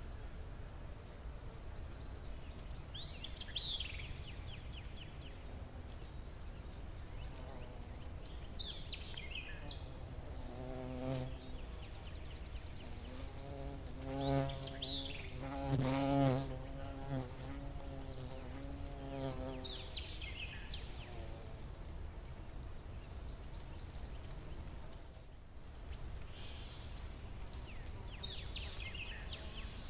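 Forest ambience: a flying insect buzzes past, coming and going in the middle and loudest about halfway through. Underneath runs a steady high insect trill, and a bird gives a short falling call every five or six seconds.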